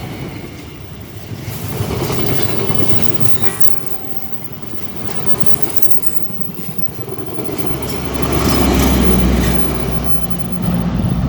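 A passenger train passing at speed close by: a continuous rush of wheels on rail with clattering over the rail joints, swelling and easing as the cars go by. A heavier, louder low rumble builds near the end.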